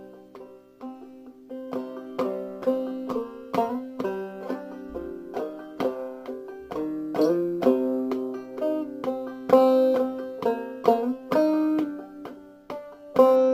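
Solo open-back banjo played clawhammer style in double C tuning: a run of bright plucked melody notes, each with a quick decay, mixed with struck chord brushes. It thins out briefly just after the start, then picks up again.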